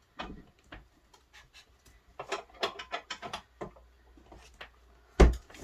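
Cut wooden boards knocking and scraping against a wooden bookcase as they are wedged in tight to support a bowing shelf. A run of light taps and clicks, with one sharp knock near the end.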